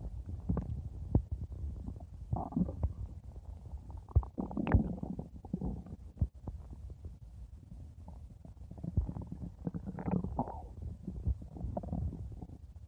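Stomach growling and gurgling: an irregular low rumble with small squelchy clicks, swelling into louder gurgles about two and a half, five and ten seconds in.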